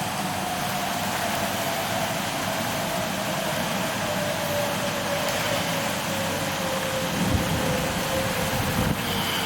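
A siren wailing on one long tone that slowly falls in pitch, over a steady rush of wind and rain.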